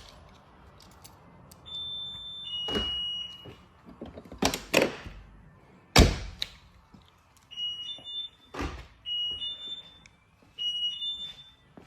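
Lamborghini Murcielago door lock actuators clunking as the locks are cycled, with the newly fitted driver-side actuator now working alongside the passenger one. Between the clunks come several short high electronic beeps, each of two notes stepping down in pitch.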